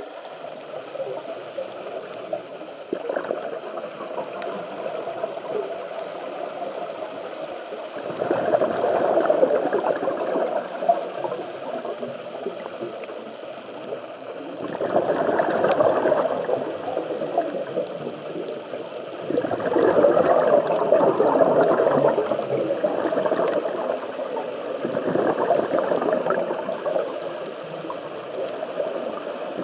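A scuba diver's exhaled bubbles gurgling out of the regulator, heard through a camera's underwater housing: four swells of bubbling, each two to three seconds long, come every five or six seconds over a steady underwater hiss.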